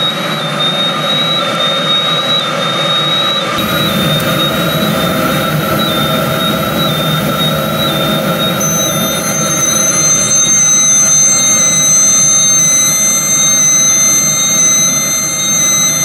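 Diesel air heater running over-fuelled with a steady roar, a 4 kW heater body pushed toward 8 kW that burns rich and makes heavy carbon monoxide. Over it, high-pitched gas-detector alarm tones sound for carbon monoxide and sulfur dioxide, with a second set of higher alarm tones joining about halfway through. A deeper fan rumble comes in about three and a half seconds in.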